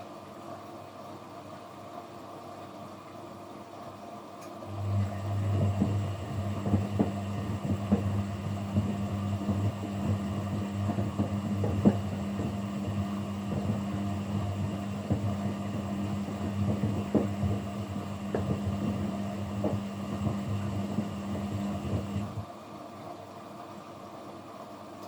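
Kunft washing machine in a quick 40°C wash: about five seconds in the drum motor starts and turns the drum for some seventeen seconds, a steady hum with a faint whine and irregular knocks from the tumbling load, then stops, leaving a quieter steady hum.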